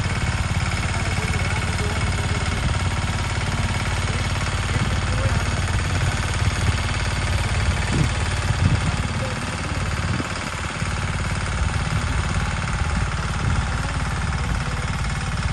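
Swaraj 717 mini tractor's single-cylinder diesel engine running steadily as it drives a boom sprayer through the field, with a few louder uneven knocks about halfway through.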